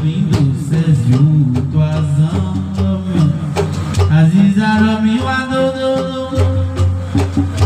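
Live traditional music: voices singing with sharp percussion strikes, the strikes thinning out and the singing moving to longer held notes about four seconds in.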